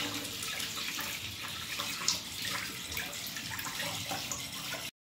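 Tap water running steadily into a sink, with small clicks and splashes, cutting off abruptly near the end.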